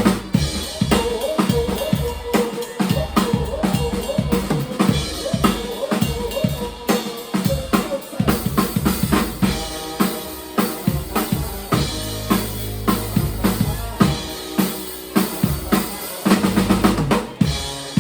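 Live band playing, with the drum kit loudest: kick drum, snare and rim shots keep up a busy, driving beat, and low bass notes come in now and then.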